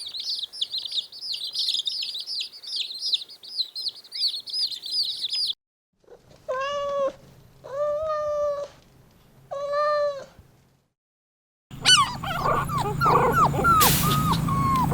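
Three cut-together bursts of animal calls. First comes a rapid run of high chirps, then three long, drawn-out pitched calls of about a second each, then a busy run of many short calls over a low hum.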